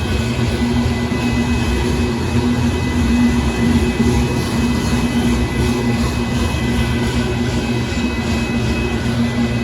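Union Pacific gravel train rolling past: a steady rumble of the cars on the rails, with a steady hum and a faint high tone over it.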